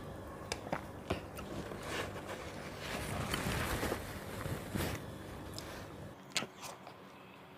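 Close-up eating sounds of ripe mango: soft wet chewing and sucking at the flesh, with scattered small mouth clicks and smacks.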